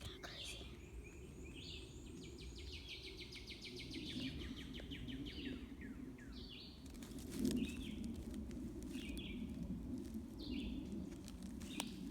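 Wild birds calling: a fast, rapid high trill early on, then short high downslurred chirps repeated every second or two. Underneath runs a low rustling, with a sharp knock about seven and a half seconds in.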